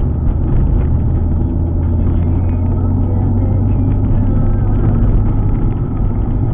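Alfa Romeo 147 GTA's 3.2-litre V6 running at a steady pace on the road, a strong low drone with tyre and road noise.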